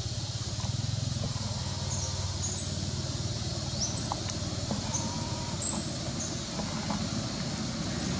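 Outdoor ambience: a steady low motor rumble with short, high bird chirps scattered through it.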